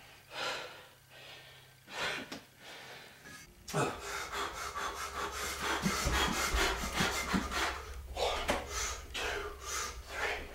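A man breathing hard in quick, rhythmic breaths while exercising: faint at first, then louder and faster from about four seconds in, over a low steady hum.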